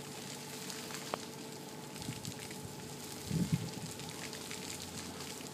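Light freezing rain ticking on ice-glazed ground and surfaces: a steady fine hiss full of small scattered ticks. A brief low rumble comes about three and a half seconds in.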